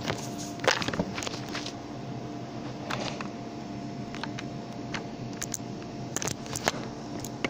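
A steady mechanical hum from a running motor, with scattered sharp clicks and knocks from the phone being handled.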